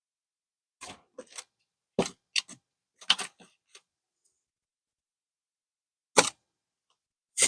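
Plastic plant pots and trays being handled: a series of short clacks and rustles, with a single sharper knock about six seconds in.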